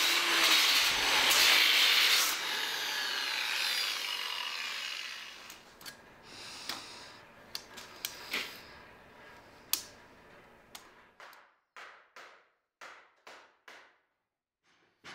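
Makita angle grinder grinding the end grain of a wooden board into a round, loud for about two seconds, then running lighter and dying away. A few sharp clicks follow. Near the end comes a run of short scraping strokes, about two a second, from a flat steel blade worked across the rounded wooden end.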